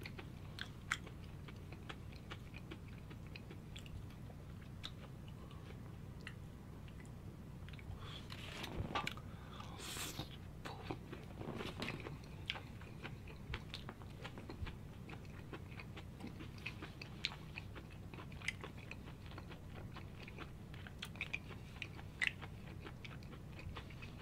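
A person chewing grilled beef intestines: many short, wet mouth clicks and smacks, with a few louder, noisier sounds about eight to twelve seconds in.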